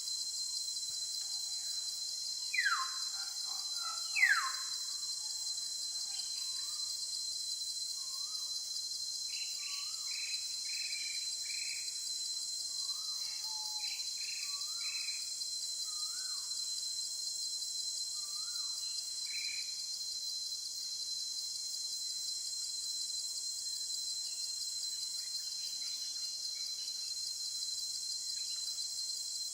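Steady high-pitched insect chorus with scattered bird calls: two loud falling whistles about three and four seconds in, then a run of short chirps and notes.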